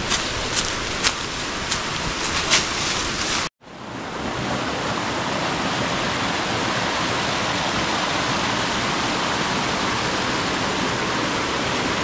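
Footsteps on a trail strewn with dry leaves, a few crisp steps, then after a sudden cut about three and a half seconds in, the steady rush of a small stream tumbling down over rocks.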